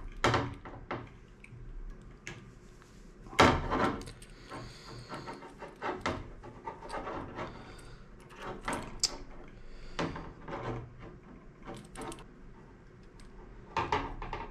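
Small metal parts handled by hand: a screw and ground wire being fitted to a metal coaxial lightning arrester, giving light scattered clicks, scrapes and rattles, with one louder knock about three and a half seconds in.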